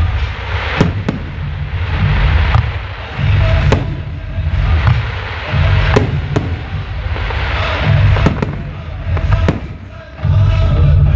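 Aerial fireworks display: shells bursting in about ten sharp, irregularly spaced bangs over a continuous hiss and crackle, with bass-heavy music playing alongside.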